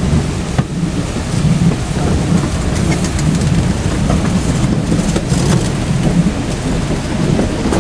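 Train wheels running on the rails: a steady heavy rumble with scattered clicks from the track.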